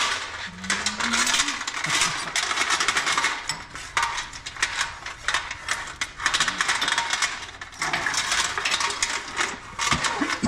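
Metal chain rattling and clinking in irregular bursts as it is handled and hooked up.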